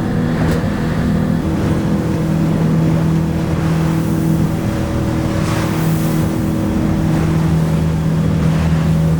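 Boat engine running steadily under way, a constant low drone with the rush of water and wind over it.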